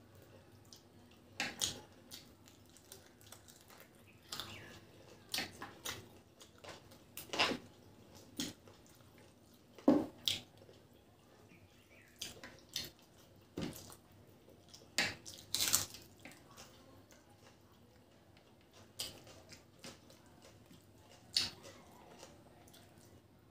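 Close-up eating sounds of rice and curry eaten by hand: wet lip smacks, chewing and fingers squishing rice on a plate, as irregular sharp wet clicks.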